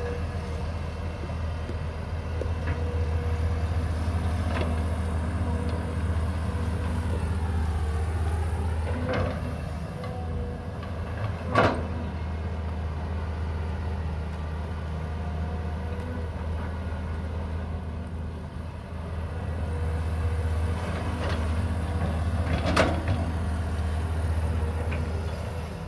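Hydraulic excavator's diesel engine running steadily under load as it loads soil into a dump truck. A whine falls and rises again about eight seconds in. Sharp metallic clanks from the bucket and dumped soil sound out, the loudest about halfway through and another a few seconds before the end.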